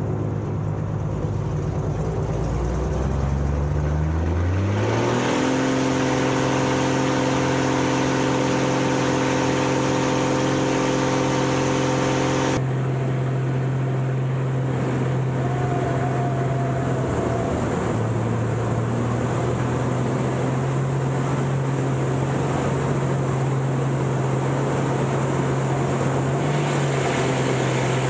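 Piston engine and propeller of a Panzl aerobatic plane heard from inside the cockpit, rising in pitch over the first few seconds as power comes up for the takeoff, then holding a steady full-power drone through the climb. The tone changes partway through.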